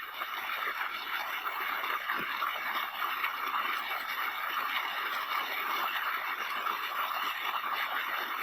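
Rain falling steadily and solidly, an even hiss with no let-up.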